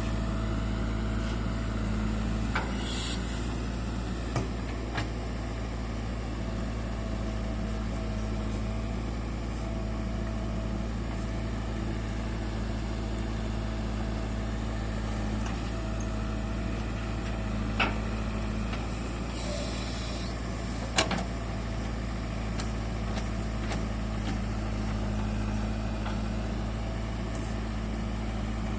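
Heavy diesel engine running steadily with a low, even drone, broken by a few sharp clicks and knocks and a brief hiss about two-thirds of the way through.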